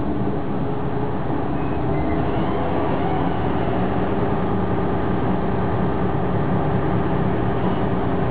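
Inside the passenger compartment of a DB Class 628.2 diesel multiple unit under way: the underfloor diesel engine hums steadily over the rumble of the wheels on the rails.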